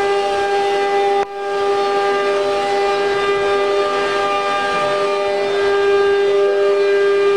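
CNC router spindle running with a steady, high-pitched whine. The sound dips briefly about a second in and then comes back.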